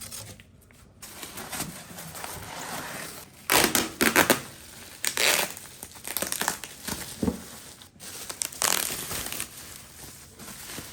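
Packaging being torn open and crumpled by hand while unboxing: irregular bursts of rustling and tearing, loudest about four seconds in, again around five seconds, and near nine seconds.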